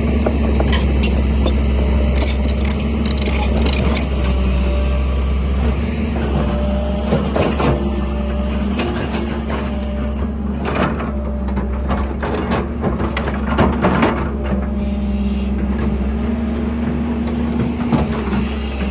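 Heavy diesel engine of construction machinery running steadily, with scattered metallic clanks and knocks, a cluster of them in the middle stretch.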